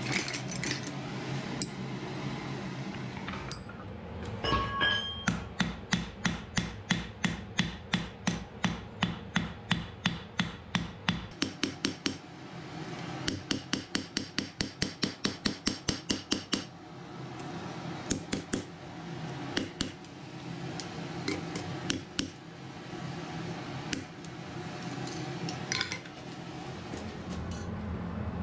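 Hand hammer forging a red-hot wrought-iron and steel axe head on an anvil: two fast runs of blows at about three a second, then scattered single blows, over a steady low hum.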